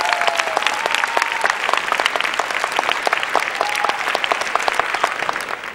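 Audience applauding: dense, fast clapping at a steady level that stops abruptly at the end.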